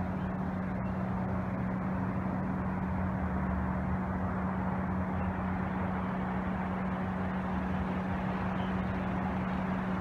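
Steady hum of distant road traffic with a constant low drone underneath.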